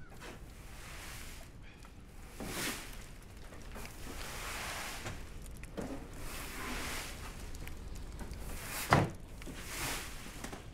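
Brushing and scraping strokes over gritty, snowy ground, a few seconds apart, then one sharp thump about nine seconds in.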